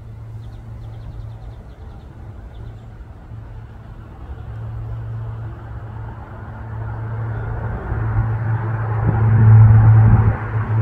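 Twin-engine turboprop airliner climbing out after takeoff, its propellers making a steady low drone that grows steadily louder as it nears overhead, loudest about nine to ten seconds in.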